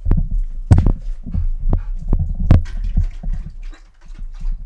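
Low rumbling buffets and a few sharp knocks right on the phone's microphone: wind and handling noise.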